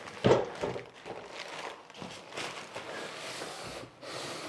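Plastic wrapping rustling and a cardboard box being handled as a heavy plastic-wrapped metal sliding table is shifted in it. There is a knock a fraction of a second in and a few lighter knocks after.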